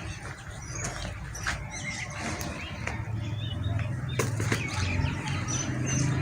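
Birds chirping in short, high calls over a steady low hum, with a few sharp knocks along the way.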